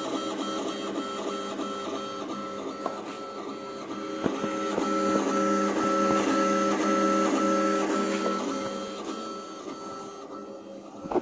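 X-Smart 3D printer's stepper motors whining in several steady, musical tones with short repeated pulses as the print head moves during a print. It grows louder around the middle and fades near the end.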